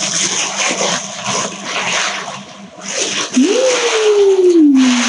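Tissue paper crinkling and rustling as it is pulled open and handled to unwrap a packet. From about three seconds in, a single drawn-out tone rises briefly and then slides slowly down in pitch over the paper noise.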